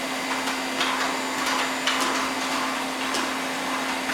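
Vacuum cleaner running with a steady motor hum and rushing air, with a few light knocks and clicks as it is moved about.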